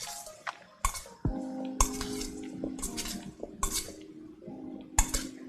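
Kitchen utensils knocking and clinking against a bowl and dishes, about eight separate clicks, over background music.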